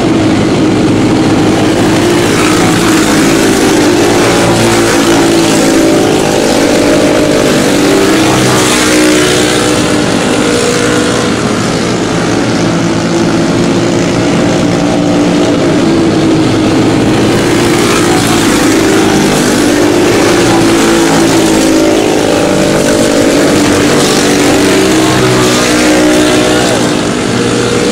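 A pack of racing karts with Briggs & Stratton Animal single-cylinder four-stroke engines, running together at high revs. Several engine notes overlap, rising and falling as karts pass.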